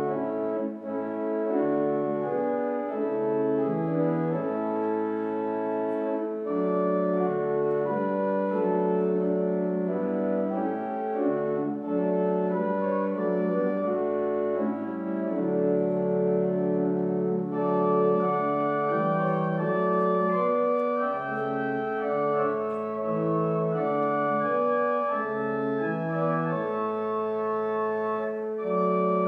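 Church organ playing a slow piece of held chords that change every second or so. The sound grows fuller, with more high notes, a little past halfway.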